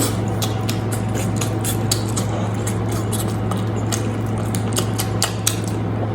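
Close-miked eating sounds: a person chewing meat with many short, irregular wet clicks and smacks, over a steady low hum.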